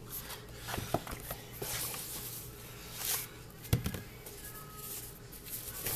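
Packaging being handled: rustling of plastic wrap and paper, with a few light knocks as foam packing inserts are moved.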